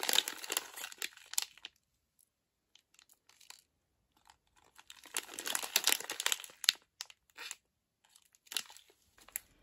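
A plastic sweets packet (Nerds Gummy Clusters) crinkling as it is handled and turned over in the hands. The crinkling comes in two bouts of a second or two, with a quiet pause between them.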